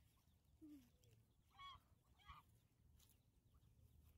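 A domestic goose honking twice, two short faint calls about two-thirds of a second apart.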